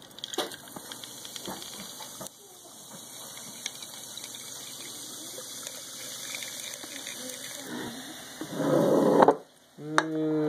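Seltzer poured from a can into a glass mason jar of ice and fruit shrub, hissing and fizzing steadily, with a few clinks at the start and a louder splashing rush near the end. A short hummed voice sounds right at the end.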